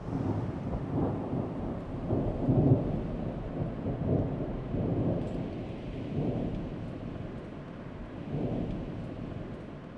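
Thunder rolling with rain: a low rumble that swells and ebbs several times, loudest about two and a half seconds in, and dies down over the last seconds.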